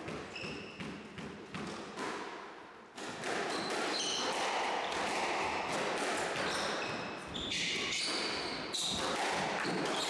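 Squash ball and rackets on a wooden-floored court. First the ball is bounced a few times, then, about three seconds in, the serve starts a rally: racket strikes and the ball knocking off the walls, with shoes squeaking on the floor.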